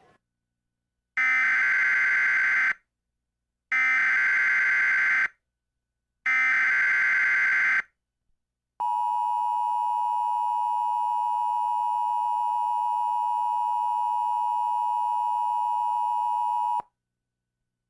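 Emergency Alert System header: three identical bursts of warbling digital data tones, each about a second and a half with short gaps between, then a steady attention tone held for about eight seconds that cuts off abruptly. These are the tones that open an emergency broadcast alert.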